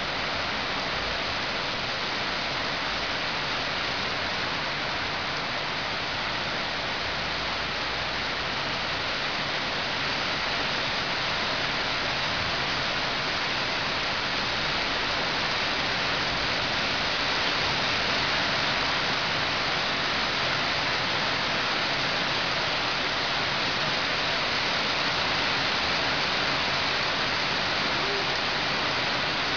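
Heavy rain pouring steadily onto trees and ground, a dense even hiss that swells slightly about halfway through.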